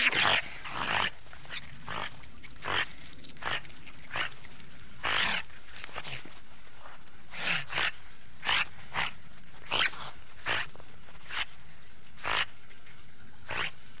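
Otter calling: a run of short, high, sharp calls, a little more than one a second and irregularly spaced, over a steady background hiss.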